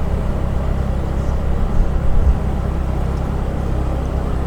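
Steady low rumble of a car's engine and tyres heard from inside the cabin while driving slowly through town traffic.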